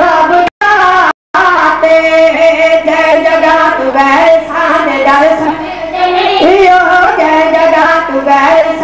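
A group of boys singing together in unison into a microphone. The sound cuts out twice, briefly, in the first second and a half.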